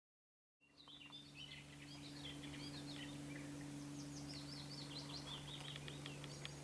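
Songbirds singing: a run of quick, chirping notes, faint, starting about half a second in, over a steady low hum.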